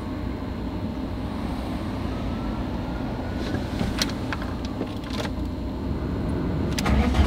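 Car engine running steadily, heard from inside the cabin as a low rumble, with a few light clicks midway. It grows louder just before the end.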